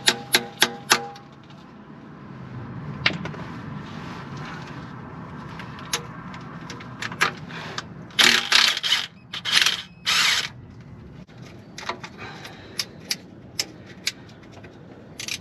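A mallet tapping a socket onto a rusty transmission pan bolt, a few quick strikes in the first second, then a cordless impact wrench hammering in four short bursts around eight to ten seconds in as it breaks the pan bolts loose. Scattered light metal clicks follow.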